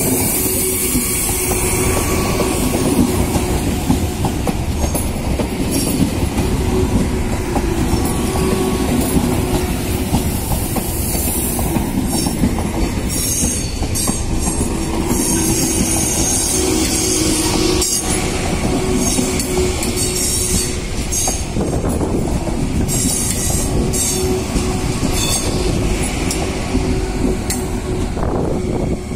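Frecciarossa 1000 high-speed electric train rolling slowly past at close range, with a steady hum under the noise of the wheels on the rails. High-pitched squealing comes and goes from about twelve seconds in, with a few clacks over the rail joints.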